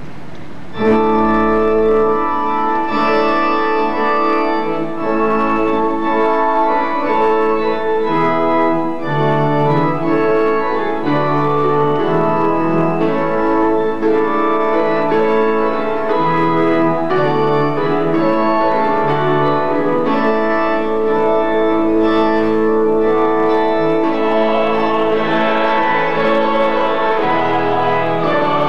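Church organ playing sustained chords over a low bass line, starting about a second in, with the chords changing every second or two. A brighter, fuller layer of sound joins in over the last few seconds.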